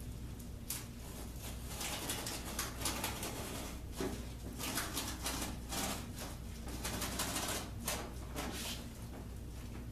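Utility knife slicing through the backing of a self-adhesive carpet tile along a square, a series of short cutting strokes.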